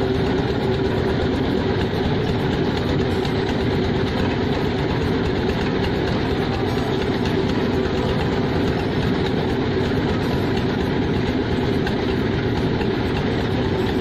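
A wooden fishing boat's engine running at a steady speed as the boat motors along, a constant even drone that does not change.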